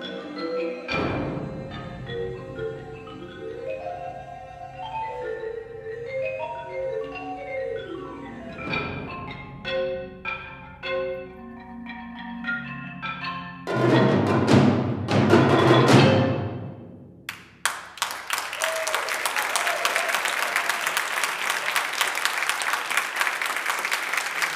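Solo marimba playing a run of separate mallet notes, then about fourteen seconds in a loud, dense closing passage from the marimba and percussion ensemble that stops about two seconds later. From about seventeen seconds in the audience applauds steadily.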